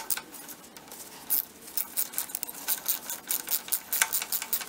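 Hand ratchet with a 10 mm socket and extension clicking in short runs while the front sprocket bolts are turned. After a quiet first second comes one sharp click, then irregular clicks several a second.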